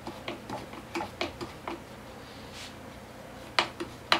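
Worm-drive hose clamp being tightened with a screwdriver around a drill body, its screw clicking irregularly a few times a second as it turns, with two louder clicks near the end.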